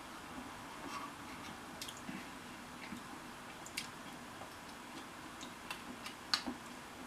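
Faint, irregular clicks and scrapes of a spoon against an opened Chef Boyardee can as food is scooped out and eaten, over a low room hum; the loudest click comes near the end.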